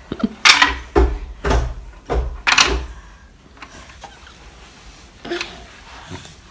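Wooden knocks and clatters from a toddler playing with a wooden zigzag ramp toy: about five sharp knocks in the first three seconds, then a quieter stretch with one more knock about five seconds in.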